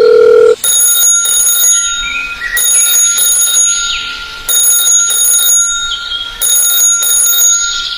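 Electronic alarm-like ringing: a steady tone that cuts off about half a second in, then a high ringing that comes in paired bursts about every two seconds.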